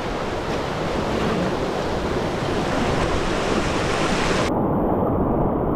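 Whitewater rapids rushing and churning around an inflatable kayak, with wind buffeting the camera microphone. About four and a half seconds in, the sound abruptly turns duller as the higher hiss drops away.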